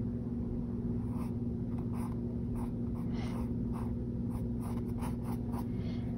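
Small paintbrush dabbing and stroking on a stretched canvas, a series of faint irregular scratchy brushes, over a steady low hum.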